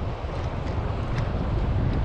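Wind buffeting the microphone: a steady, gusty low rumble, with a few faint ticks.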